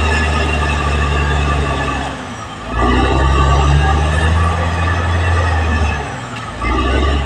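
Caterpillar D6R XL bulldozer's diesel engine running under load, steady and loud, easing off briefly about two seconds in and again around six seconds before picking back up.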